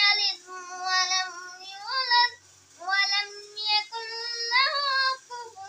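A young boy chanting a Quran recitation in a melodic, sung style: long held and gliding notes in phrases, with short breath pauses between them.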